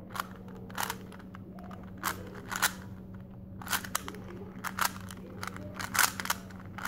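Plastic Rubik's speed cube clacking as its layers are turned quickly by hand: irregular clusters of sharp clicks.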